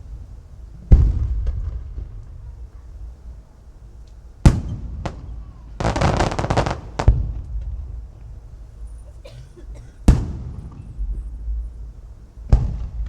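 Aerial firework shells bursting: five sharp booms a few seconds apart, each trailing off in a low rumbling echo, with a burst of rapid crackling near the middle.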